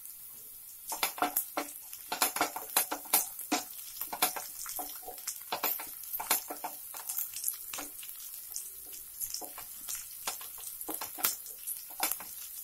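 Chopped garlic, ginger and green chillies sizzling in hot oil in a nonstick kadai, with a wooden spatula scraping and tapping against the pan as it stirs, starting about a second in.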